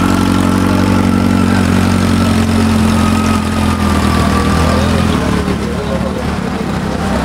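Yamaha XJ650's inline-four engine idling steadily, then pulling away; its sound thins and drops off about five seconds in as the bike rides off.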